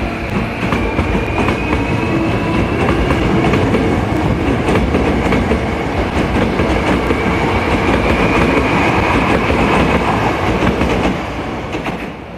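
Hankyu 1000 series electric train accelerating away from a station: its motors give a whine that slowly rises in pitch over the rumble of the cars and the clack of the wheels over rail joints. The sound drops off near the end.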